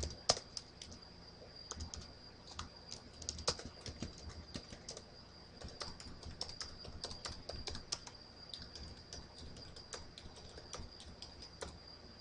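Typing on a computer keyboard: irregular, quick key clicks with short pauses between bursts, over a faint steady high-pitched whine.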